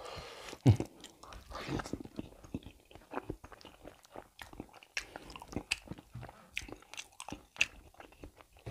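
Close-miked chewing of a mouthful of beef curry and rice: a run of short wet smacks and clicks, with one louder smack about two-thirds of a second in.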